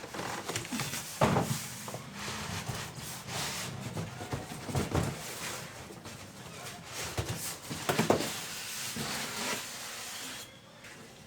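Packaging being handled as a PC case is lifted out of its box: rubbing and rustling with scattered knocks and a few louder thumps, the loudest about a second in and around eight seconds in.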